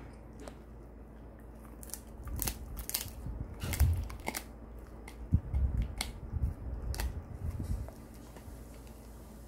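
Shiba Inu biting and chewing a hard dried meat treat held in a hand: a run of sharp crunches and snaps with dull chomping thuds, starting about two seconds in and stopping shortly before the end.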